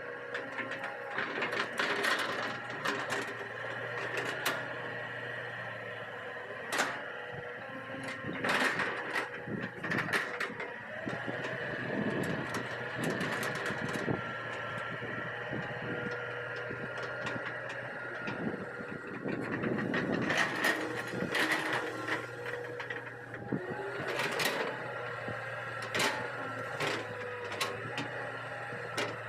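Hitachi EX200 hydraulic excavator at work levelling soil: its diesel engine running steadily, with frequent sharp clanks and knocks scattered throughout and busier stretches about eight and twenty seconds in.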